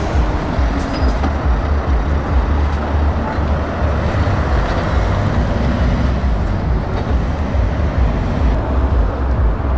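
Scania tractor unit's diesel engine running as the truck drives away, a steady low rumble.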